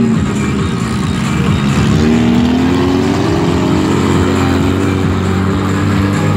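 Stunt cars' engines revving and running, the pitch rising and falling repeatedly as the cars are driven around the arena.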